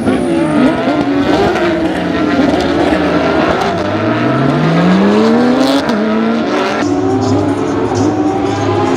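Endurance race car engines running hard as cars pass, several engines overlapping. One engine climbs steadily in pitch as it accelerates about four seconds in.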